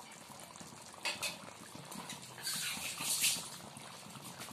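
Egg curry gravy simmering in a nonstick pan, bubbling softly, with a light knock about a second in and a louder spell of hissing and spluttering around the middle.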